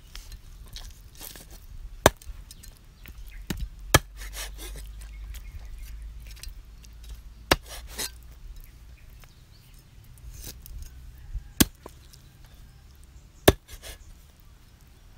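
Meat cleaver chopping raw frog into pieces on a wooden chopping board: about six sharp chops, irregularly spaced one to several seconds apart, with softer knocks in between.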